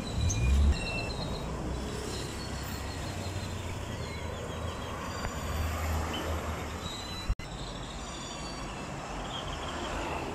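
Street traffic: cars and trucks driving past with a steady low rumble that swells briefly right at the start, with faint bird chirps behind it. A sharp click and a brief dropout come about seven seconds in.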